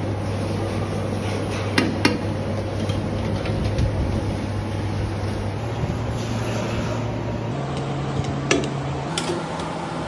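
A metal mesh strainer ladle clinks against a large aluminium cooking pot as parboiled rice is spread in it: two sharp clinks close together about two seconds in and two more near the end, over a steady kitchen hum.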